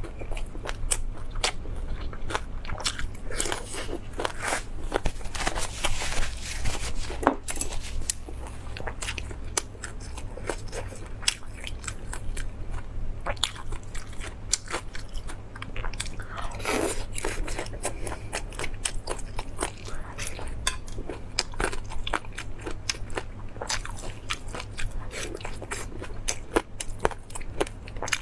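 Close-miked eating: a person biting and chewing food, with crunches and many sharp clicks from the mouth, over a steady low hum.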